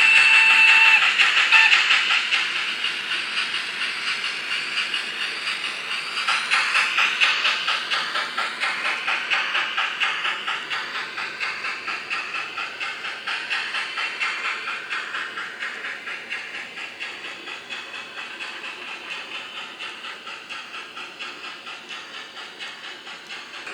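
Sound decoder of a Tillig TT-scale G 8.2 (BR 56) steam locomotive model: a steam whistle that ends about a second in, then steady rhythmic chuffing, played through the model's small loudspeaker and slowly growing fainter.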